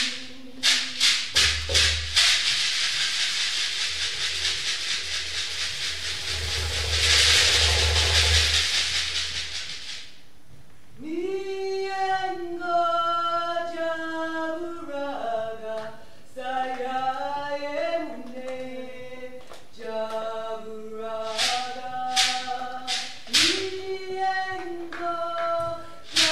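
Sharp shaker strokes, then a dense rattling shake that swells and fades over several seconds. After that a voice sings a slow melody of held notes without accompaniment, and a few sharp shaker strokes come back near the end.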